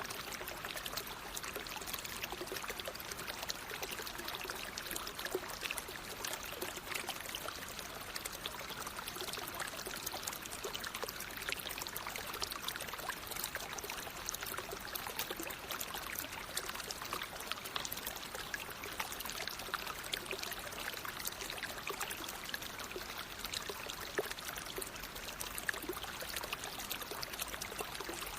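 Water in a natural stream flowing steadily, an even rushing hiss full of small splashes.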